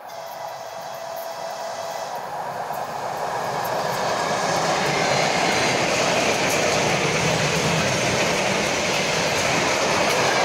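ER9M electric multiple-unit train passing at speed, its noise growing louder over the first four seconds or so as it nears. Then a steady loud rush of wheels and carriages on the rails as the cars go by close at hand.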